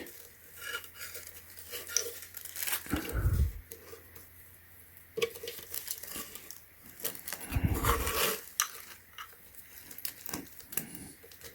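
Rustling and crinkling of a mesh barrier bag being handled as a submersible pond pump is fitted into it. Two dull thuds come through, one about three seconds in and another past the middle.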